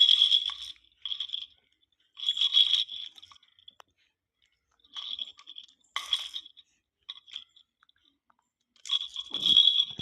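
A rattle shaken in short bursts, about seven shakes with pauses between them, each giving a rattling jingle with a bright ringing edge.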